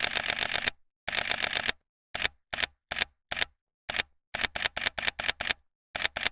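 Camera shutters clicking, press-conference style: two quick bursts of about ten clicks a second, then single clicks about half a second apart, then another fast burst near the end, with dead-silent gaps in between.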